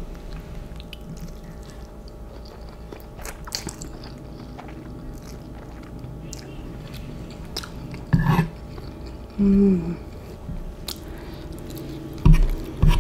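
A person chewing and biting a mouthful of instant ramen noodles close to the microphone, with scattered small clicks. Louder knocks come about 8 seconds in and near the end.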